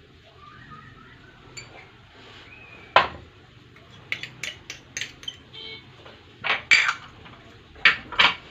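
Crockery clinking: a small dish and utensil knocking and tapping against a ceramic mixing bowl as its contents are scraped in. There is one sharp knock about three seconds in, then a quick run of taps, and a few more clinks near the end.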